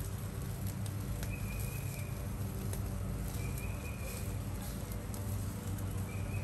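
Yard ambience: a steady low hum, a bird's short high note repeating about every two seconds, and faint crackling from burgers cooking on a small charcoal grill.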